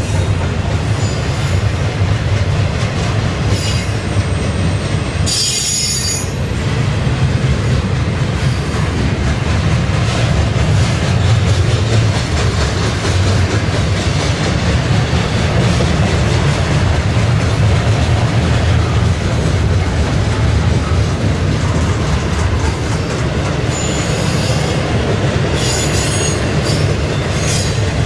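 Double-stack intermodal train's well cars rolling past: a steady, loud rumble and clatter of steel wheels on rail. High-pitched wheel squeal comes in about five to six seconds in and again in the last few seconds.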